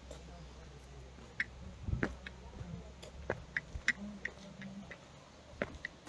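Footsteps on a concrete path: irregular light clicks and ticks, several a second, with one heavier knock about two seconds in. Under them runs a low rumble of wind or handling on the microphone.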